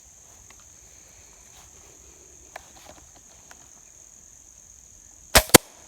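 Steady high-pitched buzz of insects, then near the end two sharp, loud cracks about a fifth of a second apart: a .22 shot at a squirrel, which drops with a headshot.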